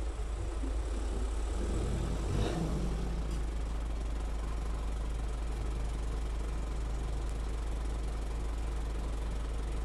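Toyota Land Cruiser BJ40's four-cylinder diesel engine running at low speed as the truck rolls out, then idling steadily. There is one short louder moment about two and a half seconds in.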